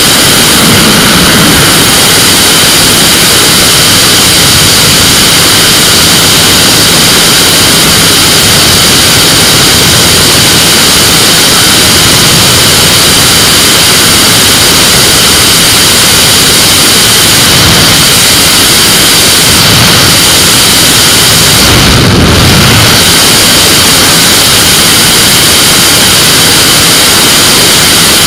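Flexwing microlight's engine running at takeoff power, steady and loud under a heavy rush of wind over the open-cockpit microphone, through the takeoff roll and climb-out. A brief gust buffets the microphone about three-quarters of the way through.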